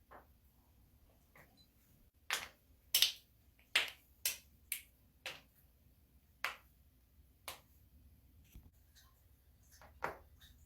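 Joints cracking: a series of sharp pops. There is a quick run of about six pops roughly half a second apart, starting about two seconds in, then three single pops spaced a second or more apart.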